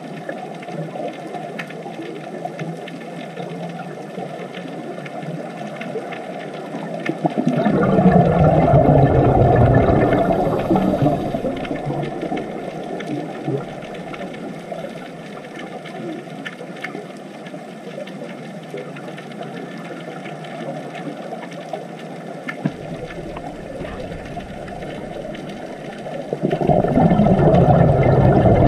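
Underwater ambience picked up by a scuba diver's camera: a steady low rushing, with two louder bursts of bubbling rumble from a diver's regulator exhaling, about eight seconds in and near the end, each lasting three to four seconds.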